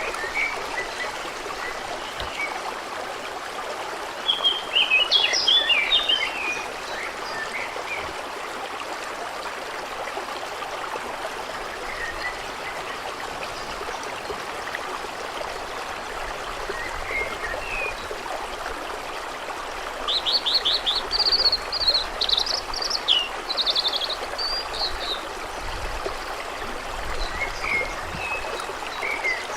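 A stream running steadily, with songbirds singing over it: a burst of song about four seconds in, a longer, rapidly trilled song about two-thirds of the way through, and scattered single chirps between.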